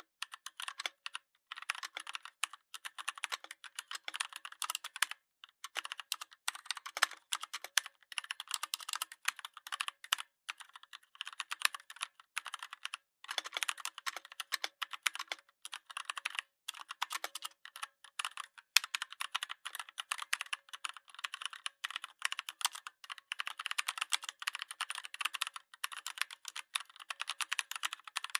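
Rapid, irregular clicking in dense runs broken by short pauses, like fast keyboard typing.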